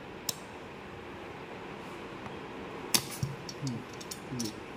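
Handling noise from a 125 mm marble cutter's steel base plate being tilted on its bevel: a faint click, then a sharper metallic knock about three seconds in, over low room hiss.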